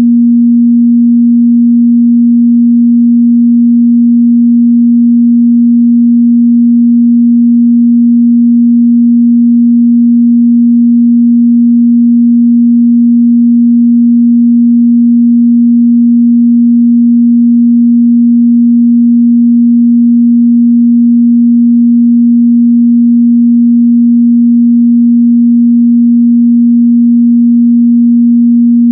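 Steady 237 Hz sine-wave test tone, a single unchanging mid-bass hum held at constant loudness.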